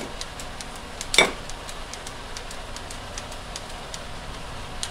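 Chicken frying in a pan: a steady sizzle with small irregular pops, and one sharp clink about a second in from the vegetable peeler knocking the plate while shaving a block of Romano cheese.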